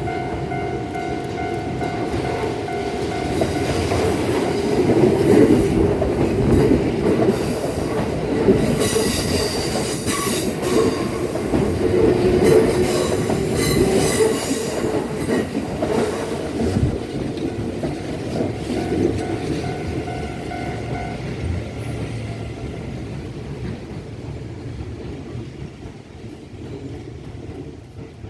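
A Kintetsu limited express made of 22600 and 22000 series units passing at speed, with wheels rumbling and clattering over the rails, swelling to its loudest in the middle and then fading away. A level crossing warning bell rings steadily through much of it.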